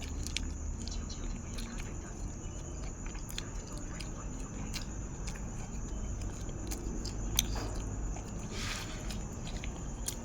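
Close-up chewing and mouth sounds of a person eating nam tok moo (grilled pork salad) with sticky rice: scattered small wet clicks and smacks, with one brief louder smack near the end.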